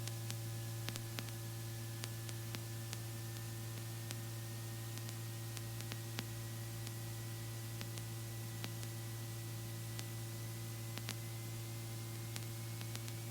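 Robinson R44 helicopter heard faintly through the headset intercom during engine run-up: a steady hum and hiss, with a thin whine slowly rising in pitch as the engine RPM is brought up, and scattered faint clicks.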